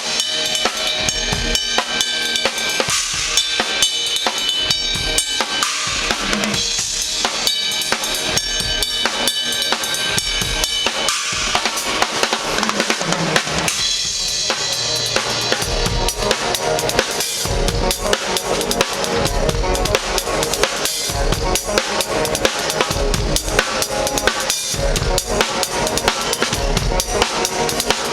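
Drum kit being played continuously, with rapid, dense hits.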